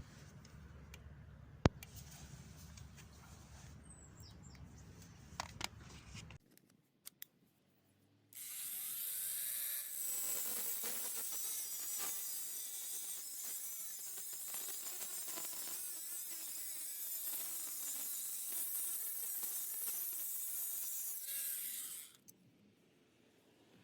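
Faint clicks and handling of the tool and its case, then after a short silence a Parkside 20V mini angle grinder (PWSAM 20-Li A1) runs and cuts with its cut-off wheel: a loud, high-pitched grinding that lasts about fourteen seconds and stops suddenly near the end.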